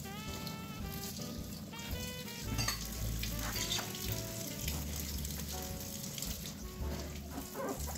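Water from a kitchen tap running steadily into a sink while dishes are washed under it, with background music playing over it.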